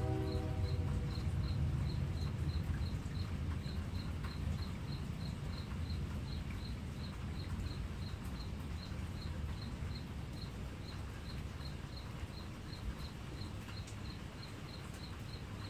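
A cricket chirping in a steady rhythm, about two to three high chirps a second, over a steady low rumble. A pitched hum fades out about a second in.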